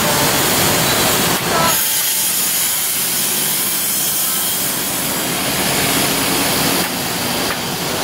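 A loud, steady hiss of compressed air from a Mercedes-Benz OH 1526 tour bus's pneumatic system. It starts suddenly a little under two seconds in, runs for about five seconds, and eases off near the end.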